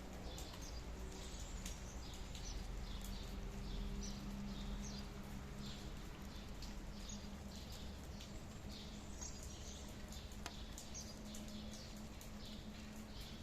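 Small birds chirping in many short, quick calls over a steady low background noise.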